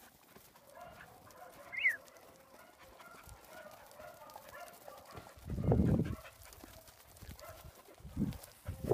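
Merino sheep milling on dry dirt, their hooves shuffling and pattering faintly. A short high chirp comes about two seconds in, and a brief low rumble about five and a half seconds in, with a smaller one near the end.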